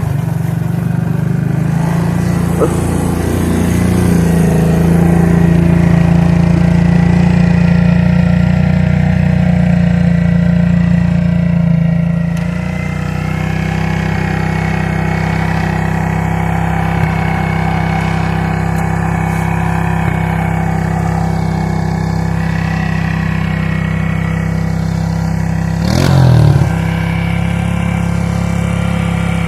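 Suzuki King Quad ATV's single-cylinder four-stroke engine running under steady throttle, louder for the first dozen seconds and then holding steady, with one short rev shortly before the end.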